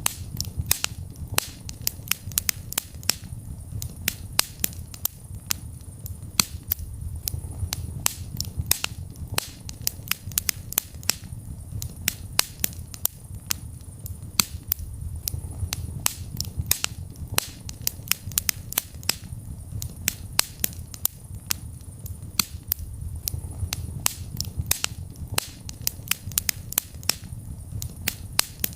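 Wood fire burning in a fireplace: many sharp, irregular crackles and pops, several a second, over a low rumble of the flames.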